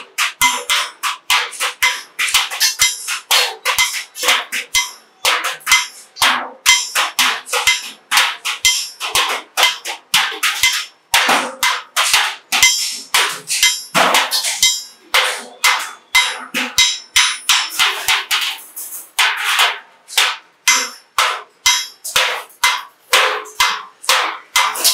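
Hand hammer striking a curved galvanized steel sheet, the body of a bucket being formed, in a steady run of sharp metallic blows about three a second, each with a brief ring.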